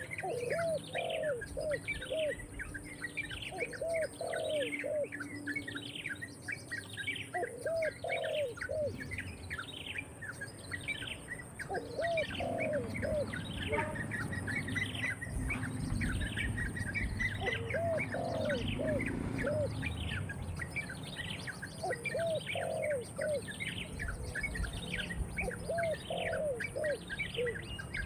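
Birds calling: a fast, steady series of high downward-sweeping chirps repeated over and over, joined about every four seconds by a lower call of three to five quick arched notes.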